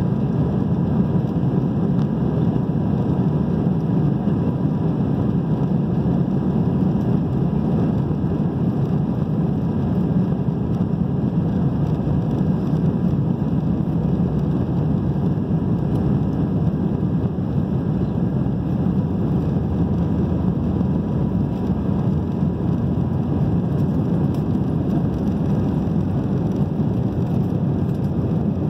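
Airbus A319 jet engines at takeoff thrust during the takeoff roll, heard from inside the cabin as a loud, steady, deep rush of noise mixed with runway rumble, with a faint steady whine above it.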